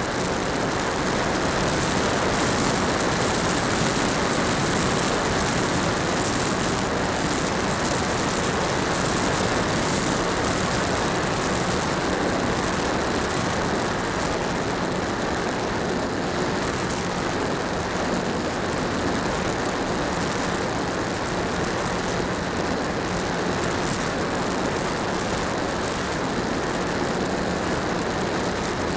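Electric motor and propeller of an HK Skipper RC seaplane in flight, heard from a camera on the plane itself: a steady drone with a low hum under heavy rushing air noise.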